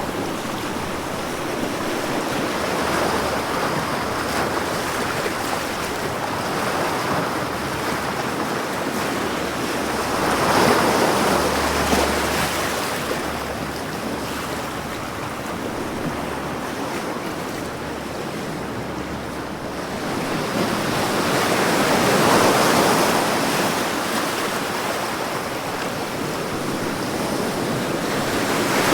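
Ocean waves breaking on the shore, a continuous wash of surf that swells with each big wave every several seconds and then recedes.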